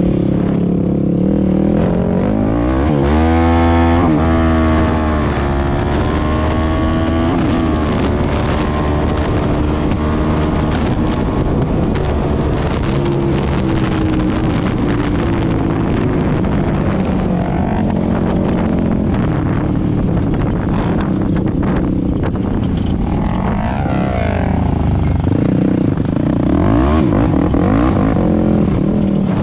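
Single-cylinder 450 sport quad engine under way, revving up hard about three seconds in and shifting up through the gears, then holding a steady cruising speed and picking up revs again near the end.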